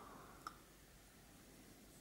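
Near silence: room tone, with one faint, short click about half a second in.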